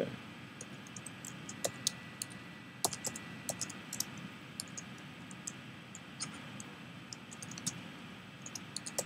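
Typing on a computer keyboard: sparse, irregular keystroke clicks, some in short quick runs.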